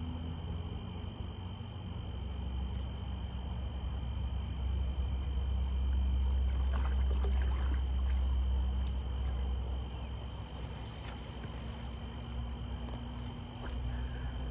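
Crickets chirring in a steady, unbroken high drone of two pitches, over a low rumble that swells through the middle.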